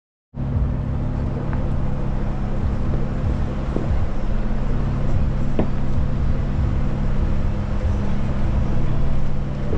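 Jeep Wrangler engine running steadily at low speed as it crawls along a rocky dirt trail, heard close up from the hood, with a few light knocks.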